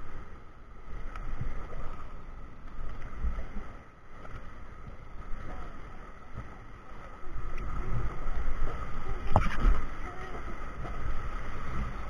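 Rushing water of a river rapid under a raft, with low rumbling on the microphone. It gets louder about seven seconds in, and there is a sharp knock about nine seconds in.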